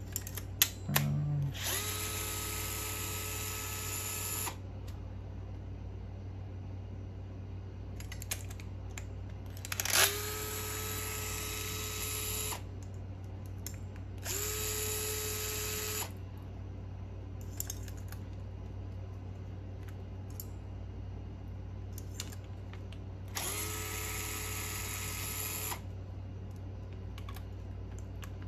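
Small handheld power driver run in four short bursts of about two seconds each, its motor whining up in pitch as it spins up, then holding steady. Light clicks of tools and parts come between the bursts, over a steady low hum.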